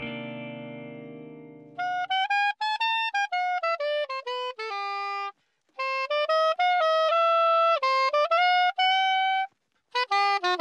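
Saxophone playing a melody of quick notes in three phrases with brief pauses between them, while a held chord dies away over the first two seconds.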